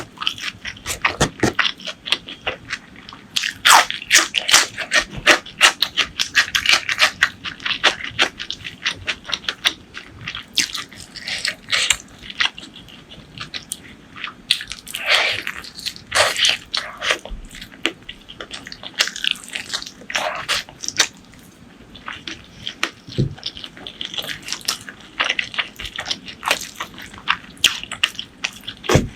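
Close-miked eating sounds: a person chewing and biting into food, with many short wet clicks, smacks and crunches. They come thick and fast at first, then thin out, with a brief lull a little over two-thirds of the way through.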